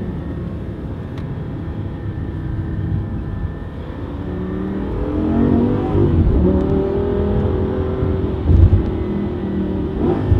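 Lamborghini Gallardo LP 570-4 Superleggera's V10 engine heard from inside the cabin, running at low revs and then accelerating with a rising pitch from about halfway through. There is a short low thump near the end.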